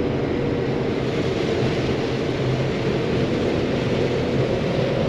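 John Deere 9500 combine running steadily, an even engine and machinery drone with a low hum and a higher steady tone.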